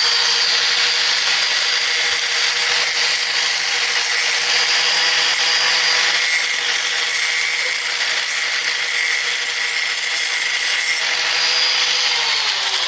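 Electric grinder running steadily, grinding points onto a forged steel throwing star with a continuous hissing grind over a steady motor hum. Near the end the motor is switched off and its pitch falls as it spins down.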